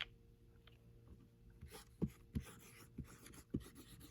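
Faint scratching of a pen writing on a surface, in short irregular strokes from about halfway in, after a small click at the start.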